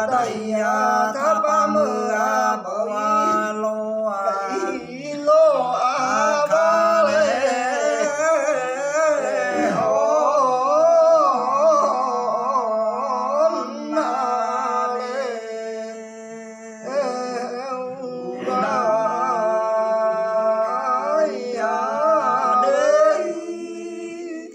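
A man singing a traditional Hà lều folk song without accompaniment, in long, drawn-out phrases with wavering, ornamented pitch slides and short breaths between them. A steady low hum runs underneath.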